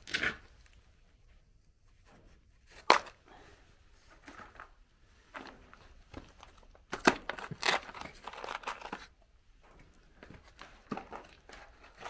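A single sharp knock about three seconds in, then crinkling rustles of a dusty cloth cover being handled and pulled about, loudest from about seven to nine seconds.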